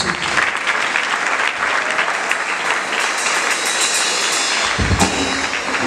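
Crowd applauding steadily, a dense patter of many hands, with a thump about five seconds in.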